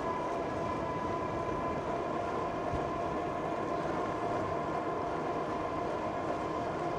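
Electric bike motor whining steadily under load on a steep climb, over a hiss of tyre and wind noise.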